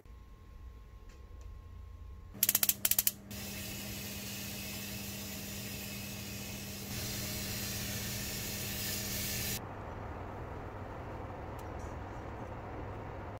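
Electrostatic powder coating gun spraying: a steady hiss of air with a low hum, stepping louder partway through and cutting off suddenly. A quick run of sharp clicks comes just as the spraying starts.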